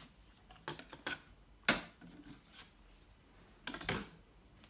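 Hard plastic window slide panels of a portable air conditioner being handled and turned over: a few brief scrapes and knocks, the sharpest one a little before the middle.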